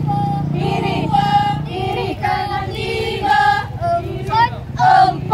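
A squad of women marchers singing a marching song in unison.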